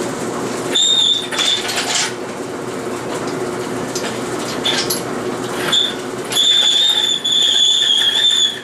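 Loaded engine hoist rolled across concrete: its casters rumble and give a thin, high squeal in short stretches, the longest about two seconds near the end.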